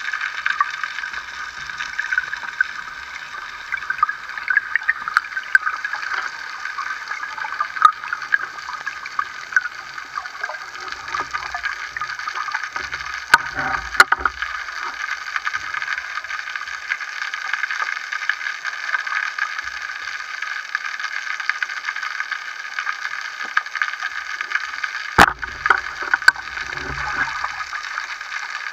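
Underwater ambience heard through a speargun-mounted camera: a steady hiss with scattered small clicks and crackles, and a few sharp knocks about halfway through and again near the end.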